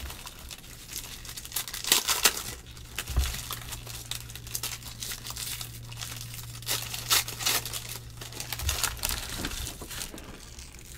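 Foil trading card pack wrappers being torn open and crumpled in the hands: a run of irregular crinkles and tearing crackles.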